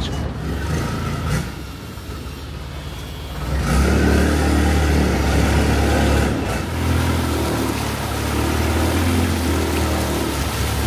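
Longtail boat engine running steadily, getting louder about three and a half seconds in.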